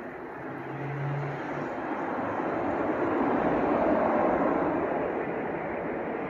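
Rushing noise of a passing aircraft, growing louder over the first four seconds, with a brief low hum about a second in.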